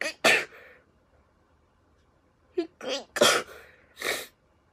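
A young woman sneezing repeatedly in a hay-fever sneezing fit: one sharp sneeze at the start, then a quick gasp and further sneezes about three and four seconds in.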